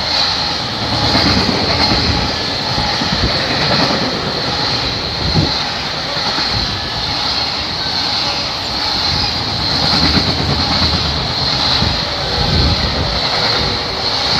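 Freight train's container wagons passing at speed, a loud, steady rumble of wheels on rail with a constant high hiss over it.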